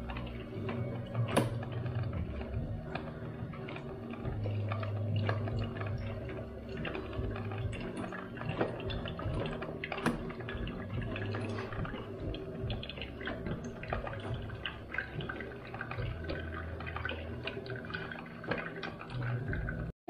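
Sibs drip coffee maker brewing: the water heater boils and sputters while coffee drips and gurgles into the glass carafe, a steady low hum under a continual patter of small pops and crackles.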